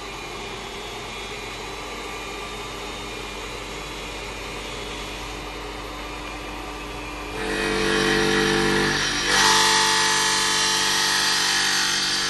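CNC stone-cutting machine: a steady motor hum, then about seven seconds in a louder whine with several steady tones as the cutting head works into the stone slab, joined about two seconds later by a loud, high grinding hiss.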